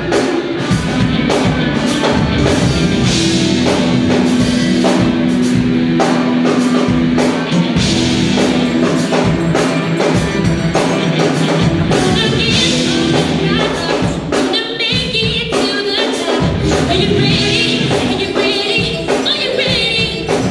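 Band music with a drum kit keeping a steady beat and singing voices over it, the voices growing more prominent about twelve seconds in.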